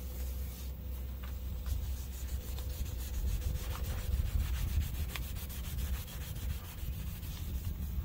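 Dark cloth rubbing in quick, repeated strokes on the brass bell of an old steam whistle during hand polishing, starting about a second in and stopping just before the end.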